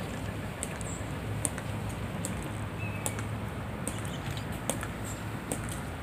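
Measured marching footsteps of a ceremonial honor guard sentinel, his metal-tapped heels clicking sharply on the stone pavement about once every 0.8 seconds, over a steady low rumble. A bird chirps briefly a couple of times.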